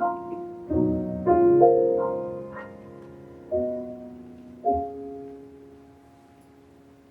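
Piano playing slow, sustained chords, each struck and left to ring. The last chord, about two thirds through, fades away.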